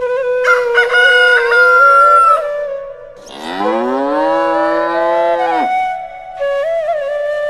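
Farm-animal calls: a rooster crowing over the first couple of seconds, then a long cow moo that rises in pitch, holds, and cuts off, and a shorter call near the end.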